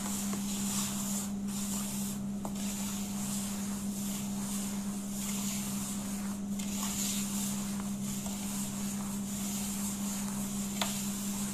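Moistened semolina being rubbed and pressed by hand across a metal tray, making a gritty, hissing scrape that comes in repeated strokes. This is the rubbing stage of mixing Kabyle semolina flatbread dough. A steady low hum runs underneath.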